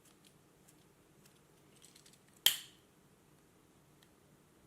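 A lighter struck once, a single sharp click about halfway through, to melt the cut end of a nylon cord, with faint small handling clicks around it.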